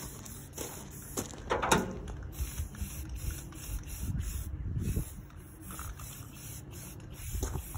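Aerosol spray paint can hissing on and off in bursts as green paint goes onto a riding mower's body panel, with a few short knocks and rustles of handling, the loudest about a second and a half in.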